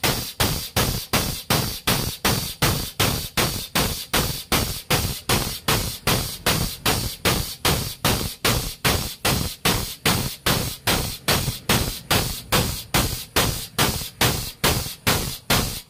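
Air-operated hydraulic jack pumping as it raises a truck axle: an even, rapid chuffing of about three strokes a second.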